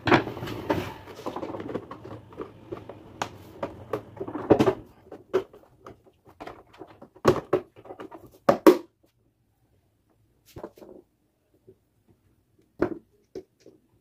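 Clicks and knocks of metal fan motor parts and a hand tool being handled during reassembly of an electric fan motor on its stand. Busy, closely spaced clatter for the first few seconds, then a handful of separate sharp knocks with quiet gaps between.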